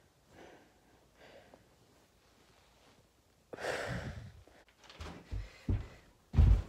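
Near silence, then a heavy sigh lasting about a second, about halfway through. Four dull thumps of feet landing on the floor follow as a person runs and jumps.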